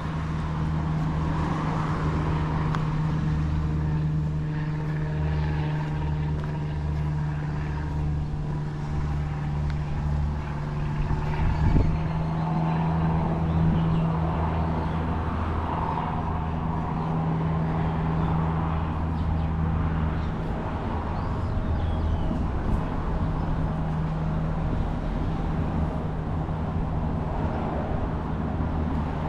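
Street traffic ambience: a vehicle engine running steadily close by with a low hum, over the noise of passing traffic. A single sharp knock comes about twelve seconds in.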